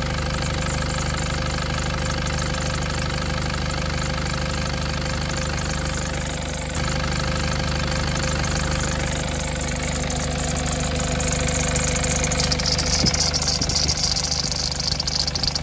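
Nissan Navara's engine idling steadily, run to push coolant through a newly fitted radiator while it is checked for leaks. A louder airy hiss joins in from about twelve seconds in.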